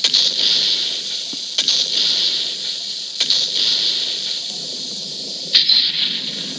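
Homemade kaiju monster sound effect: four hissing screeches, each starting sharply and fading over about a second and a half.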